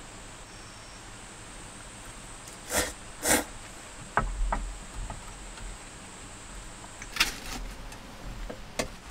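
Eating from a mess tin: a handful of short clicks and scrapes as the utensils knock against the tin, over a steady faint hiss, with a low rumble underneath from about the middle on.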